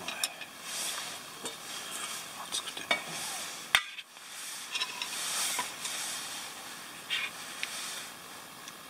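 Chopsticks clinking and scraping in a metal camp bowl of hotpot, with one sharp clank just before four seconds in, over a steady hiss.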